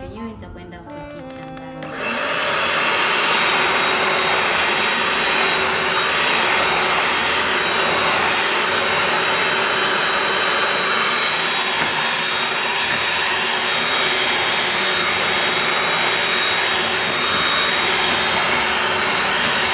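Electric hand mixer switching on about two seconds in and running steadily with a thin high whine, its beaters whipping an egg yolk into creamed butter and sugar.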